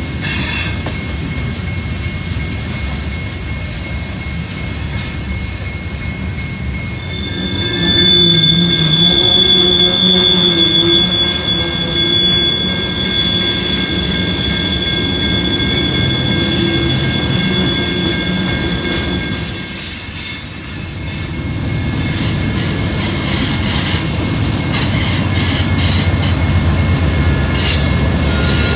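Freight train of covered hopper cars rolling past, with a steady rumble of wheels on rail. High, steady wheel squeal rides over it throughout, loudest and shrillest from about 7 to 16 seconds in.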